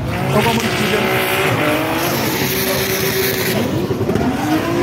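Drift car's engine held high in the revs while its rear tyres spin and squeal sideways, making thick smoke; the revs drop briefly about three and a half seconds in and then climb again.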